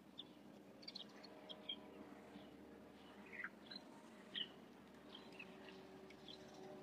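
Near silence outdoors: faint, scattered short bird chirps, a few falling in pitch, over a faint steady low hum.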